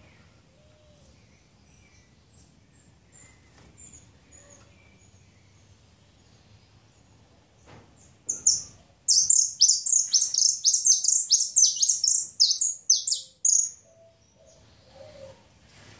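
Caged saffron finch singing: soft high chips, then about eight seconds in a loud run of rapid high notes, about four or five a second, each dropping in pitch, lasting some five seconds before it stops.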